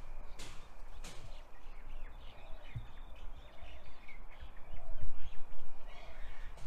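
Footsteps and handling noise from a hand-held camera while walking outdoors, over a low rumble of wind on the microphone, with birds chirping in the background.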